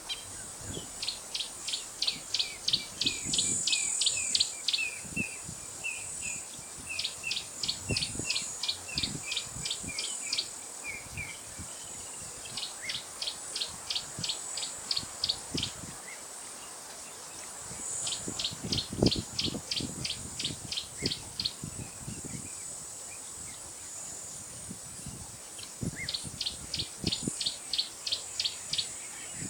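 A bird calling in bouts of rapid, high, repeated notes, about three a second for three to four seconds at a time, with the bouts coming again every several seconds. Under it runs a steady high insect drone, with scattered soft low thuds.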